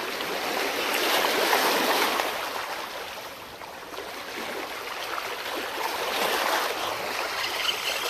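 Small sea waves washing against shoreline rocks, swelling and falling back twice.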